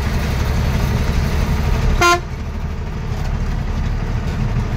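A vehicle horn gives one short toot about two seconds in, over the steady low engine rumble heard from inside the cab of a heavy vehicle crawling in stop-and-go traffic.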